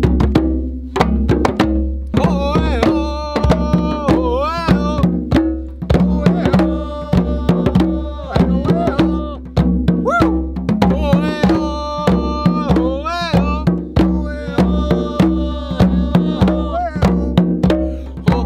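Several djembe hand drums played together in a quick, busy rhythm, with voices singing along in stretches.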